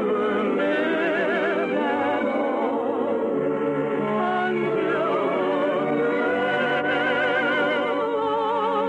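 Orchestral music from a 1950 radio broadcast: a slow, lyrical melody with heavy vibrato, in the narrow, dull sound of an old radio recording.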